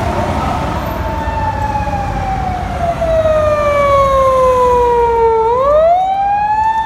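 Japanese police patrol car's siren sounding over traffic noise: its pitch slides slowly down for about five seconds, then rises quickly near the end and holds high.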